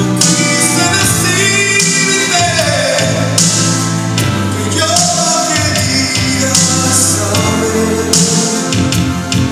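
A song playing: a singer holding long, sliding notes over steady instrumental backing.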